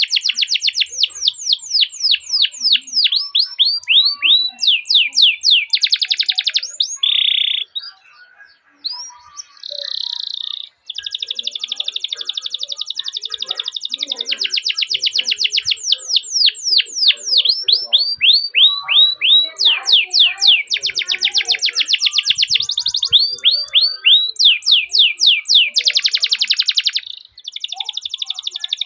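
Domestic canary singing: long rolling trills alternating with runs of fast down-sweeping chirps, with a short break a third of the way in.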